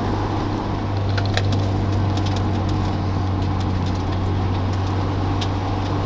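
A car running at a steady, unchanging engine note, a constant low drone with no revving. A few light clicks come through about a second in and again near the end.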